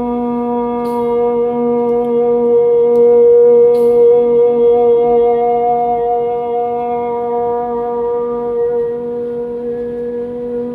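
A woman's voice chanting one long held note, with a single overtone swelling above it about halfway through: overtone chanting for vocal resonance, played back from a video through speakers.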